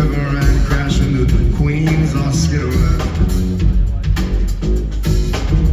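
Live rock band playing in concert: a heavy bass line under a steady drum beat, with other instruments over it.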